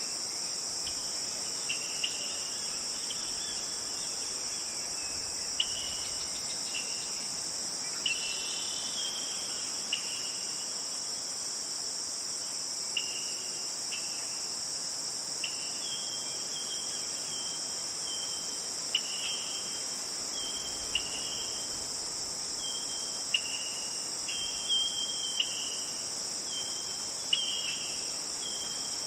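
A steady, high, unbroken chorus of crickets and other insects, with short chirping calls dropping in every second or two, more often toward the end.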